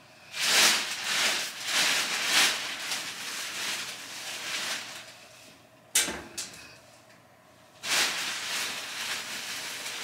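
Laundry being handled: rustling of clothes and a bag in uneven bursts, with a sharp knock about six seconds in.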